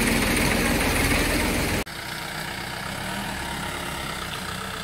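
Tractor engine running loud as it tows a loaded trailer through deep mud, cut off abruptly about two seconds in. A quieter 4x4 jeep engine then idles steadily.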